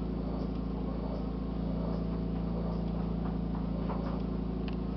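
Steady low machine hum with a constant pitch, plus a brief faint high chirp near the end.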